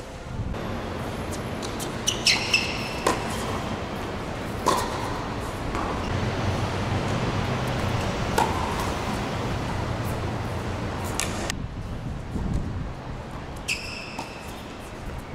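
Tennis balls struck with racquets and bouncing on a hard court during a doubles rally: a series of sharp pops a second or few apart, a couple of them with a short high ring, over steady background noise.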